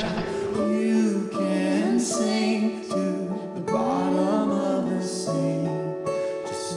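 A slow folk song: singing over acoustic guitar.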